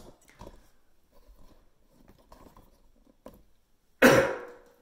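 Faint scuffs and small taps, then a sudden loud knock with a brief ringing tail about four seconds in, the kind of close handling knock made by a hand or tool striking near the microphone.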